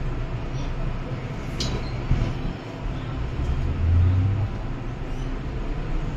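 MTR M-Train electric multiple unit running slowly past a platform, heard from inside the car: a steady low rumble with a low motor hum that rises in pitch about four seconds in as the train gathers speed.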